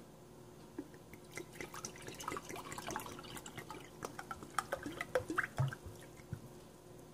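Water poured from a cup into a pot of layered fish and aromatics: a run of small splashes and drips, thinning out near the end.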